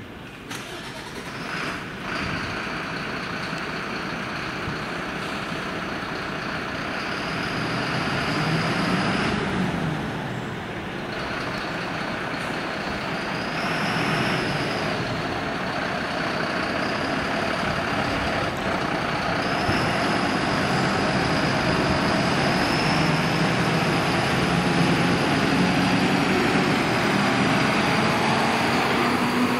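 Mercedes-Benz fire engine's diesel engine running as the truck pulls out of the station bay, getting louder with a rising engine note toward the end. A steady high whine runs alongside it.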